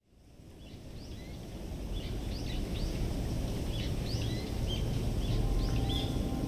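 Outdoor ambience fading in: a steady low wind rumble with small birds chirping repeatedly. Near the end, the faint steady tones of the noon chime begin.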